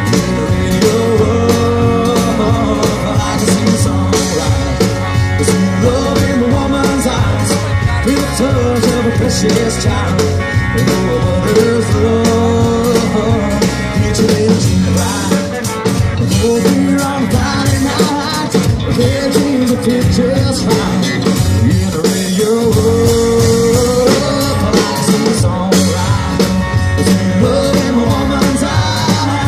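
Live country band performance: a man singing into a microphone over strummed acoustic guitar and electric guitar, played loud and without a break.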